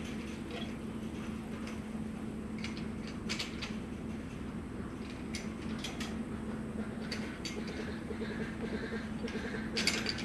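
Light metallic clinks and rattles of chain-link kennel panels being handled, over a steady low hum. Faint goat bleats come in during the last couple of seconds.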